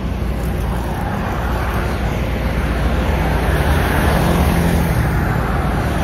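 Road traffic going by: a steady wash of tyre and engine noise with a heavy vehicle's low engine hum underneath, growing a little louder about four seconds in.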